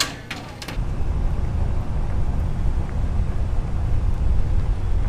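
A vehicle driving along a dirt road: a steady, loud low rumble of engine, tyres and wind that starts about a second in, after a few short clicks.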